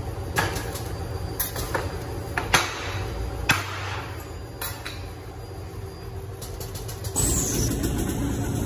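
Steady low hum of factory machinery, with a few sharp clicks and taps from handling soft PVC keychain pieces on a metal mold. About seven seconds in, the hum grows louder and changes.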